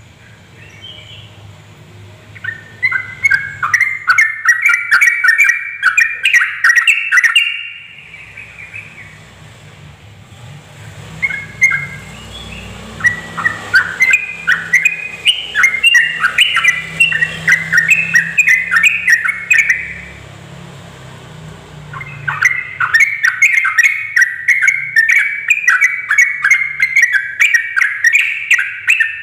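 Yellow-vented bulbul (trucuk) singing its rapid, bubbly chattering song in three long bouts of fast notes, with short pauses between them.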